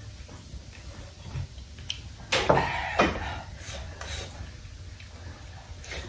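Eating sounds of a mukbang: bites and chewing on fried snacks, with the loudest couple of bites or slurps about two and a half and three seconds in.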